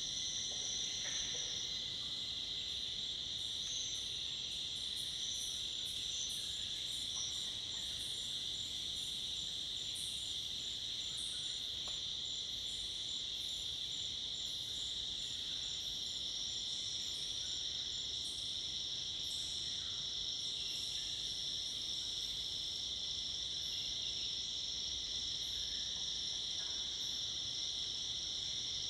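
Tropical forest insect chorus at dusk: cicadas and crickets make a steady, continuous high drone. A rapid run of evenly spaced high pips sounds through the first half, and brief higher chirps are scattered over the top.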